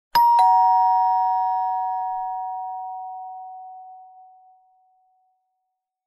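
Two-tone doorbell chime: a higher note then a lower one struck about a quarter second apart, ringing out and fading away over about four seconds.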